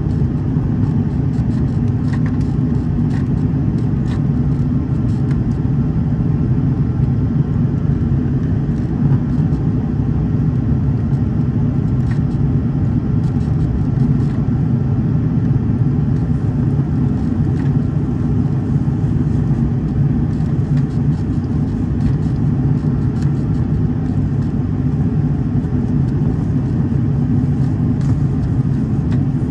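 Steady, loud cabin roar of an Airbus A330's Rolls-Royce Trent 700 engines and the airflow over the fuselage, heard from a window seat during the climb out through cloud. A faint high whine runs under it for part of the time.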